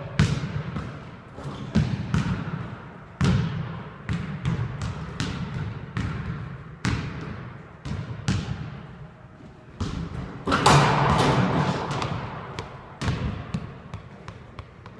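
Basketball being dribbled on a hardwood gym floor: irregular bouncing thuds, each ringing on in the echo of a large hall. About ten seconds in comes a louder, longer burst of noise lasting a second or so.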